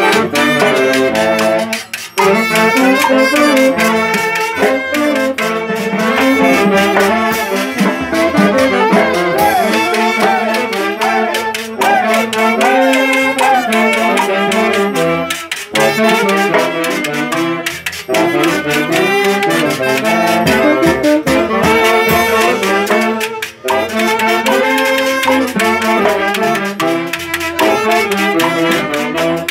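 Live Andean orquesta playing a lively tune: a saxophone section carries the melody in unison over a snare drum and cymbal, with harp and violin, breaking briefly between phrases.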